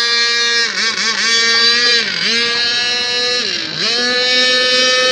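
A 40 cc two-stroke petrol engine in an RC speedboat running at high revs: a steady high-pitched whine that dips briefly three times as the throttle eases and then climbs back up.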